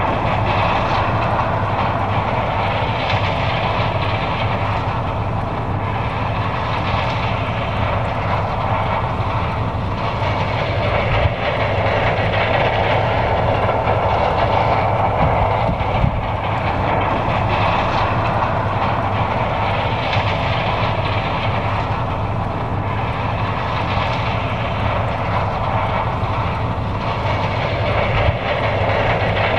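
John Deere 9550 combine running while harvesting corn: a loud, steady mechanical drone and rattle that swells and eases slightly every few seconds.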